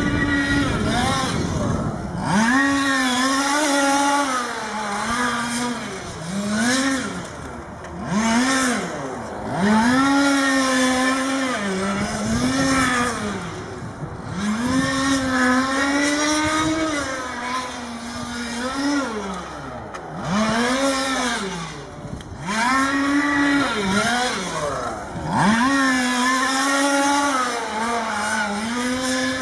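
1/5-scale radio-controlled cars' small two-stroke petrol engines revving hard and backing off over and over as they accelerate down the straights and brake into the corners. The pitch climbs and drops every two to three seconds.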